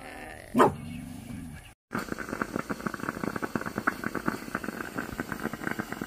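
A dog barks once about half a second in, followed by a low wavering growl-like tail; after a short cut to silence, a dense, steady crackling fills the rest.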